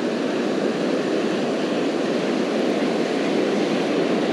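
Steady rushing noise of breaking surf and wind on the beach.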